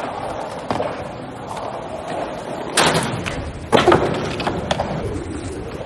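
Skateboard wheels rolling on concrete, with several sharp board clacks and landing thuds, the loudest about three and four seconds in.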